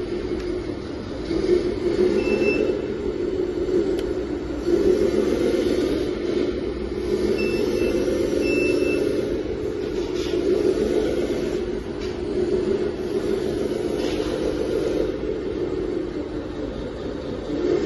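A toy RC truck's electric motor and gearbox running, swelling and easing every couple of seconds as the throttle is worked, with a few short high beeps.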